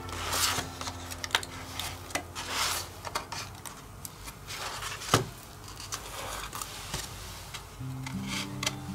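Cardstock rubbing and sliding as hands press a paper heart box into a cat-shaped paper frame, with small clicks and light knocks of card against card, the sharpest about five seconds in. Soft background music runs underneath.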